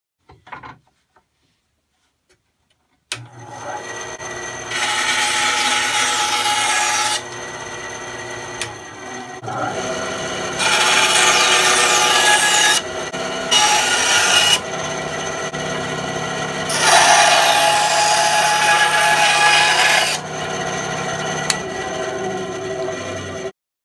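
Ryobi 9-inch benchtop bandsaw with a 2.5 amp induction motor switched on about three seconds in and running with a steady hum. Its blade saws a curve through a wooden board in four spells of loud rasping cutting, with the motor running alone in between, until the sound cuts off suddenly near the end.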